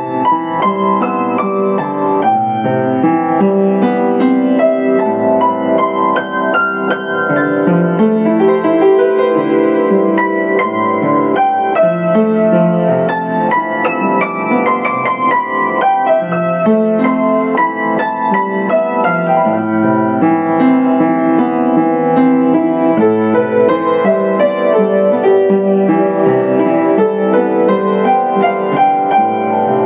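Solo piece played on a Yamaha U1J upright piano: a continuous flow of struck notes, melody over chordal accompaniment, with no pauses.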